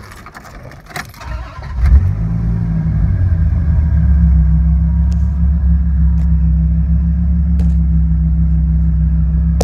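1999 Dodge Viper's 8.0-litre V10 started with the key: a few clicks, then it catches about two seconds in and settles into a steady low idle.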